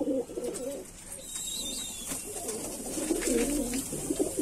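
Domestic pigeons cooing together in a loft, a steady overlapping rolling coo that dips briefly about a second in and then picks up again.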